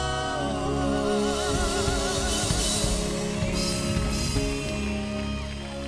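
Music: a band playing with a drum kit and bass, and a wavering sung or held melodic line.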